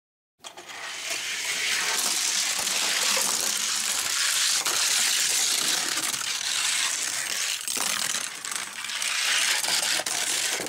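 1:64-scale Hot Wheels die-cast race cars rolling down a gravity race track: a steady rushing rattle of small wheels on the track. It starts abruptly, dips briefly about three-quarters of the way through, and cuts off sharply.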